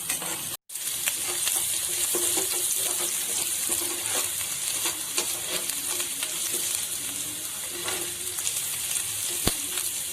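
Garlic and ginger sizzling steadily in hot oil in a pan, being fried until the raw smell cooks off, with a spatula clicking against the pan now and then. The sound cuts out briefly just after the start, and there is a sharp click near the end.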